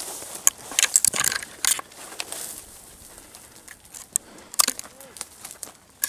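Footsteps crunching on dry, stony desert ground with brush twigs scraping and snapping against the walker, heard as irregular sharp crackles.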